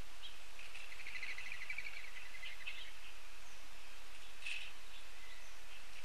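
Pileated woodpecker calling a rapid run of loud notes lasting about a second and a half, the male's arrival call as the feeder birds scatter, followed by a couple of short, sharp calls near the end, over steady outdoor background hiss.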